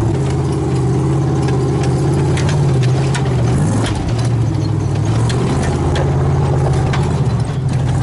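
Chevy 350 V8 in a Toyota FJ40 Land Cruiser running at low revs while crawling a steep trail, its pitch dipping and rising a little. Scattered knocks and rattles sound over the engine.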